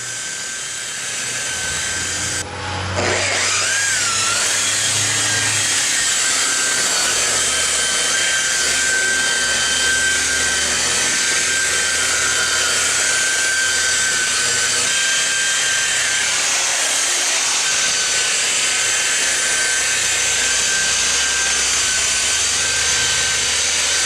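Handheld electric polisher running steadily with a high whine while buffing painted metal. About two and a half seconds in it briefly dips, then its pitch swoops back up and settles.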